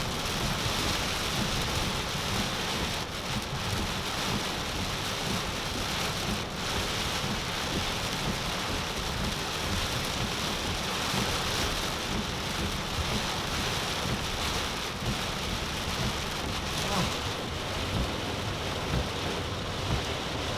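Very heavy rain falling steadily on a car, heard from inside, a dense unbroken hiss of a tropical-storm downpour.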